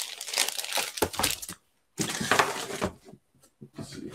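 Plastic packaging crinkling and rustling in several bursts as a plastic-wrapped CGC graded comic slab is handled.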